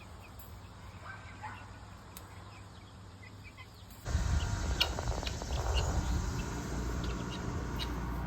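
Faint peeping of young chickens in a pen. About halfway through, a cut brings a louder outdoor background of low noise with scattered short bird chirps.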